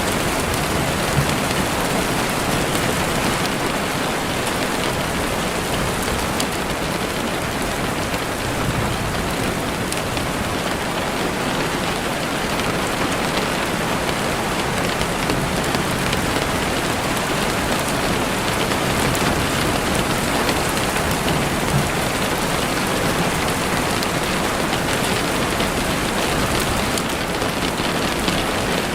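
Steady rain falling, with a campfire crackling through it in scattered sharp ticks and pops.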